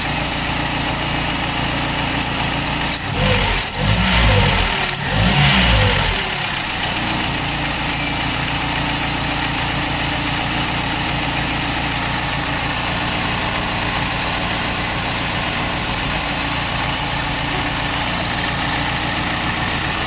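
Toyota 2E 1.3-litre four-cylinder engine on an Aisan carburetor idling steadily once warmed up, with its electric automatic choke fully open. Two brief louder swells come about three and five seconds in.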